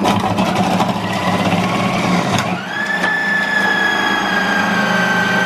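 Compact Cook Elite kitchen robot's motor driving its slicing-and-grating disc, shredding carrots pushed down the feed tube. There are about two and a half seconds of grinding, then the motor's whine rises and holds steady once the carrots are through.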